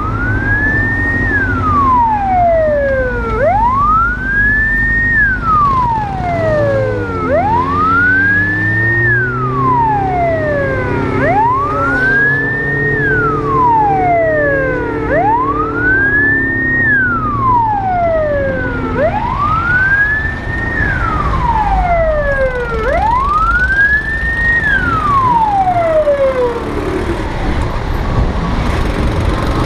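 Emergency vehicle siren wailing, rising and falling slowly about once every four seconds, over a low engine hum. The siren stops a few seconds before the end.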